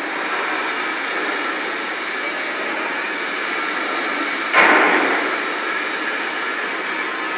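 Steady hiss of a TIG welding arc running, with a sudden louder burst about two-thirds of the way through.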